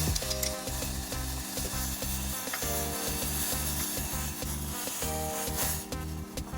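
Food sizzling steadily as it fries in a hot pan, with background music playing over it.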